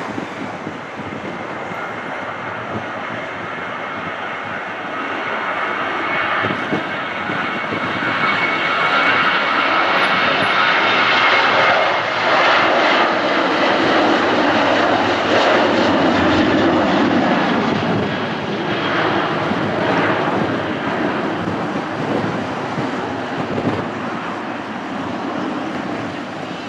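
Boeing 737-800's CFM56 turbofan engines at takeoff thrust as the airliner rolls down the runway, lifts off and climbs away. The noise swells to its loudest mid-way as the jet passes, with a high fan whine, then slowly fades.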